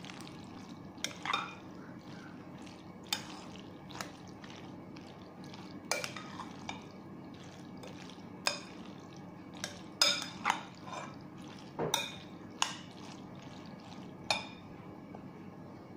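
A metal spoon stirring macaroni salad in a glass bowl, clinking against the glass about a dozen times at irregular intervals over a steady low hum.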